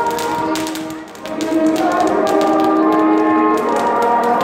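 Music with long held notes, dipping briefly about a second in, over the crackle and pops of a ground firework fountain throwing sparks.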